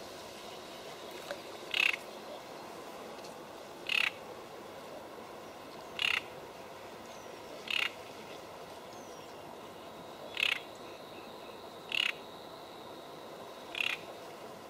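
A frog croaking: seven short calls, roughly one every two seconds, over a steady soft hiss.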